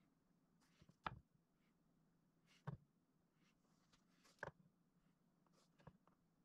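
Faint, short wooden knocks as glued end-grain hardwood blocks are pushed and tapped into line by hand. There are four sharp knocks about a second and a half apart.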